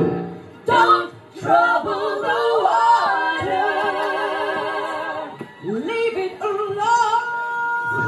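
Gospel-style singing with little or no accompaniment: wavering sung lines after a brief lull, ending on a long held note.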